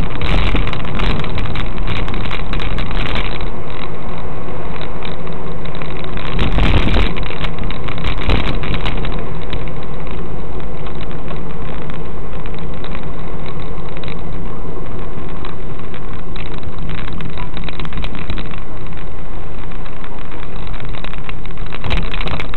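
Car engine and cabin noise picked up by a dash cam's microphone: a steady, loud, distorted rumble. A brief louder burst comes about six and a half seconds in.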